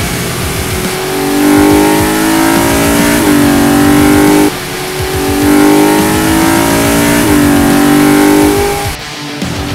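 Car engine revving hard under acceleration, its pitch climbing, dropping at an upshift and climbing again before cutting off about four and a half seconds in. The same run repeats from about five seconds to just before nine.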